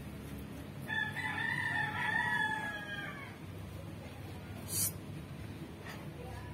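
An animal's long, high, drawn-out call lasting about two and a half seconds, holding nearly level and dipping slightly at the end.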